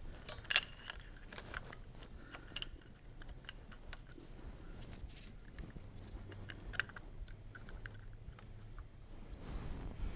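Light metallic clicks and taps, scattered irregularly, as new sintered brake pads are handled and seated in a motorcycle's front brake caliper, with a brief rustle near the end.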